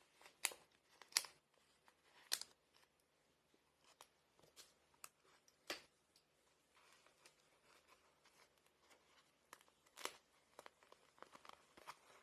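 Faint handling noise: a few scattered sharp clicks and light rustling, with long quiet gaps between them.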